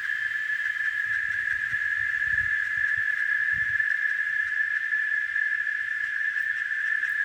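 Cicadas singing: a continuous, steady, high-pitched buzzing drone that holds level without a break.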